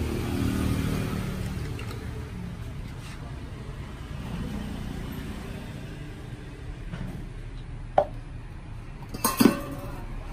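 Plastic measuring jug and drink cup clinking and clattering on a tiled counter: one sharp clink about eight seconds in, then a louder cluster of knocks about a second later. Underneath is a steady low rumble of road traffic.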